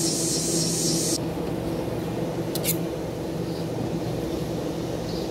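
A steady low hum, with a high hiss that cuts off suddenly about a second in. About two and a half seconds in, a metal putty knife scrapes twice against the lap sealant around an RV roof vent.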